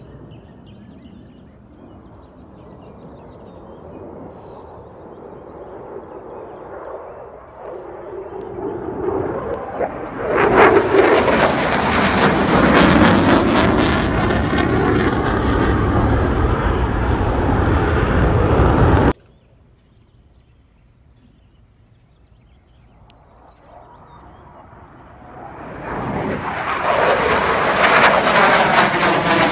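F-16 fighter jet's single engine heard in flight overhead, its jet noise building to a loud pass, then cutting off suddenly a little past halfway. A second pass then swells up loud near the end.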